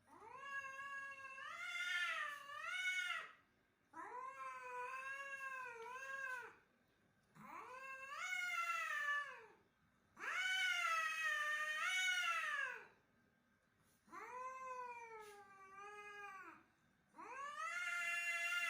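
A cat caterwauling in angry, aggressive yowls, as cats do when squaring off to fight. There are six long, wavering yowls of two to three seconds each, with short pauses between them.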